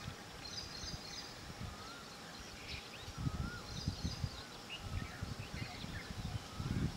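Outdoor ambience with faint bird calls: short whistled notes that rise and fall, and a few higher chirps. Low rumbling thumps come and go in the second half.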